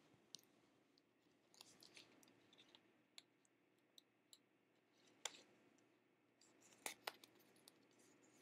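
Near silence broken by faint, scattered clicks and light rustles of small cardstock pieces being handled and pressed onto a paper explosion box, the sharpest ticks a little past five seconds and twice around seven seconds.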